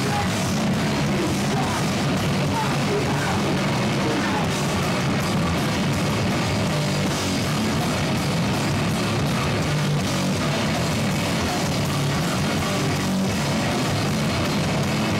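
Sludge metal band playing live: heavily distorted guitars, bass and drums in a dense, steady, loud wall of sound.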